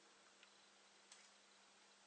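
Near silence: room tone with a faint steady hum and two faint ticks, about half a second and a second in.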